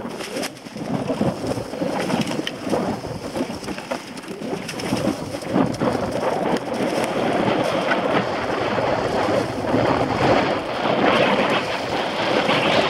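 Mountain bike ridden fast down a forest singletrack: tyres rolling and crackling over dry leaves and dirt, with many quick knocks and rattles from the bike over bumps and wind rushing over the camera's microphone. It grows louder toward the end.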